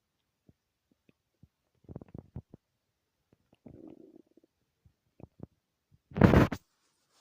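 Human stomach growling: scattered small gurgles, a cluster of short gurgles about two seconds in, a low drawn-out gurgle around four seconds, then a short loud rumble about six seconds in.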